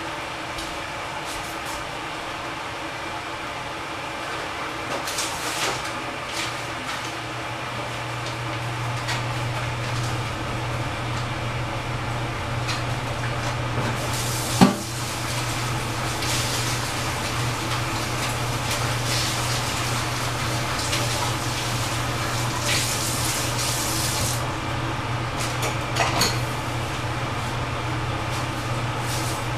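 Kitchen work: water running and pouring, with dishes and cutlery clinking. A steady low hum comes in a few seconds in, and there is one sharp knock about halfway through.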